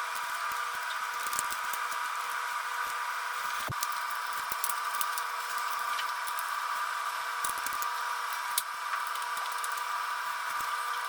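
Cordless electric screwdriver or drill running at a steady speed with an even whine, driving out the screws of an electric scooter's battery compartment cover, with a few light clicks of the bit on the screws.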